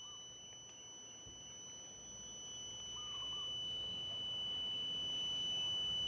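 UEi DL389B clamp multimeter's continuity beeper sounding a steady high-pitched tone, growing gradually louder. The tone means the furnace high limit switch's snap-disc contacts are still closed while the switch is heated with a lighter, before it trips open.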